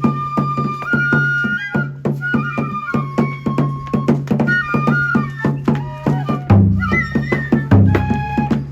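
Kagura festival music: a Japanese bamboo flute playing a melody over a steady beat of drum strikes. Heavier, lower drumming comes in about six and a half seconds in.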